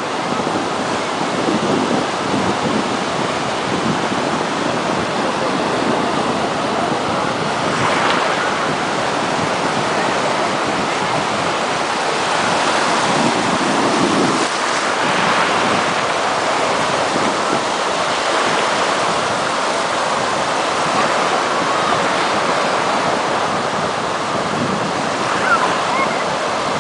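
Steady rush of sea waves and wind, with wind buffeting the microphone; it swells a few times.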